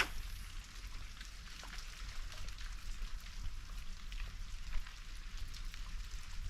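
Light, irregular patter of drops ticking on surfaces, over a steady low rumble, with one sharp click at the very start.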